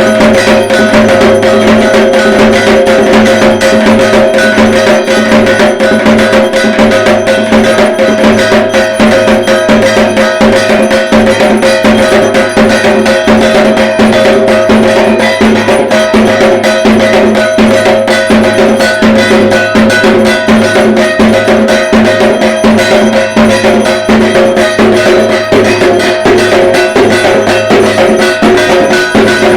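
Dhak, the large Bengali barrel drum beaten with sticks, played loud in a fast, continuous rhythm, with a steady metallic ringing sounding over the beats.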